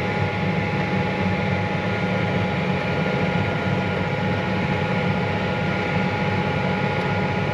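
John Deere 9560R articulated tractor's Cummins QSX15 six-cylinder diesel running steadily under load while it pulls a tillage disc through the field, with a steady thin whine over the engine.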